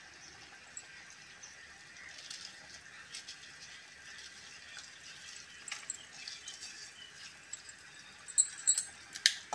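Faint soft crackle and scattered ticks of wet rice being dropped by hand into simmering gravy in a steel kadai. A few sharp metal clinks of steel utensils near the end.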